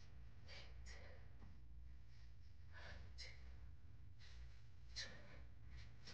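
A woman's faint, effortful breathing from the strain of leg lifts: a few short, airy breaths and sighs spaced irregularly over a low room hum.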